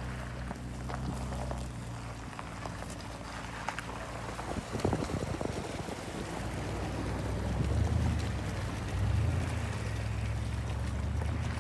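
Vehicle engine running steadily at low speed, a low hum that grows stronger about seven seconds in, with a cluster of knocks and rattles about five seconds in.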